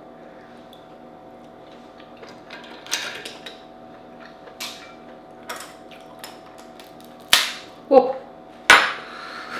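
Dungeness crab shell and a small metal crab pick clicking and tapping against a ceramic plate while the meat is picked out: scattered soft clicks, then three sharp, loud knocks in the last two and a half seconds.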